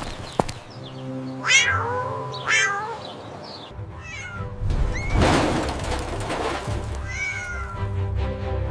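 Cat meowing: two falling meows about a second and a half in and a second later, another near the end, with a rushing noise around the middle, over background music.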